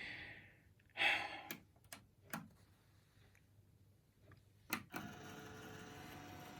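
A man sighing twice in exasperation, with a few sharp clicks. About five seconds in, a faint steady hum starts and holds.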